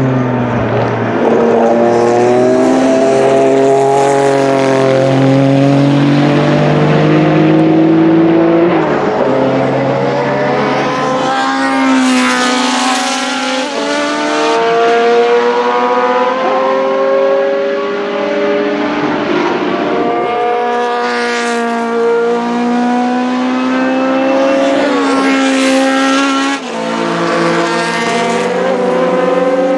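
Historic racing cars running on a circuit, engine notes rising and falling through the gears as several cars go by one after another, with a few louder close passes along the way.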